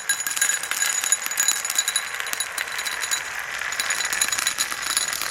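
Many marbles rolling and clattering down a marble run track: a dense stream of rapid small clicks with a high ringing underneath.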